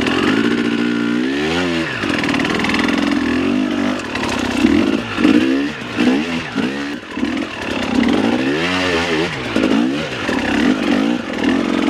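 Dirt bike engine revving up and down again and again, its pitch rising and falling every second or so as the throttle is worked on a rocky climb.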